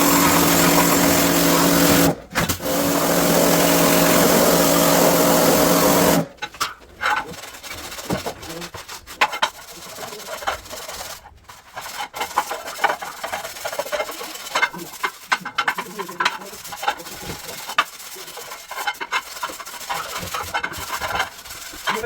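A motor-driven tool runs steadily, stopping briefly about two seconds in and then running again until about six seconds in. After it stops, there is a scattered clatter of clicks and knocks as hard parts are handled.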